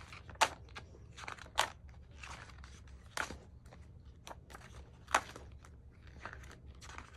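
Pages of a photobook being handled and turned: paper rustling, with four louder sharp crackles spread over the few seconds.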